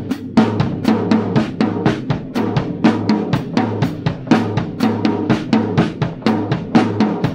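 Acoustic drum kit played with sticks: an even, steady stream of strokes on snare and toms, with bass drum strokes underneath, in a limb-coordination practice pattern.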